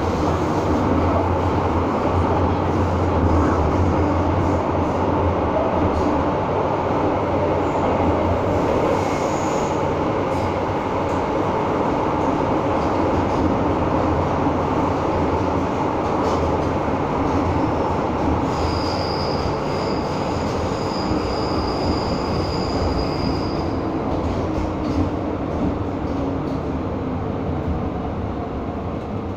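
Interior of an MTR M-Train subway car running through the tunnel: a loud, steady rumble of wheels and running gear. A thin high-pitched wheel squeal lasts about five seconds past the middle, and the noise eases slightly near the end.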